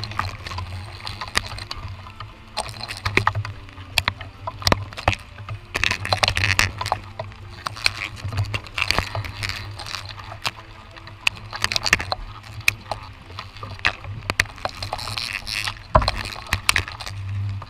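Irregular sharp clicks and knocks with leaf rustling as a camera on a telescopic pole brushes through wet tree branches in the rain, over a steady low rumble.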